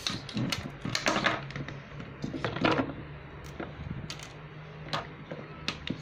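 Irregular plastic clicks and knocks from handling a watch anti-theft security display stand, its sensor head and a smartwatch on a tabletop. The clicks come in bunches in the first second or so and again around the middle, with a few single clicks later.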